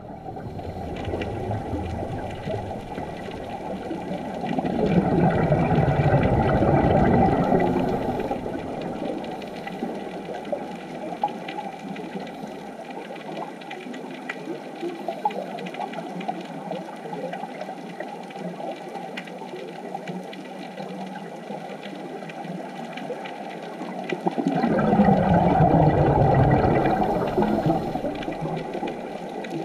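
Muffled underwater ambience: a steady dull rush of water, swelling louder for a few seconds twice, about five seconds in and near the end.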